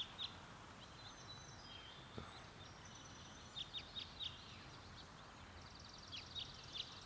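Outdoor ambience of steady background hiss with small birds chirping now and then: short high chirps, a few in the middle and more near the end, along with a fast high trill over the last second or so.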